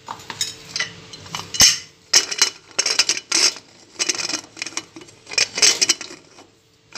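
Prestige Deluxe aluminium pressure cooker lid being set on and closed, making a run of metal clanks, scrapes and clicks. The sharpest clank comes about a second and a half in.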